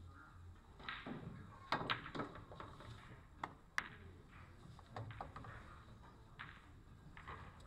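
A pool shot: the cue tip strikes the cue ball, followed at once by a sharp clack of ball on ball, with two more ball clicks about a second and a half later.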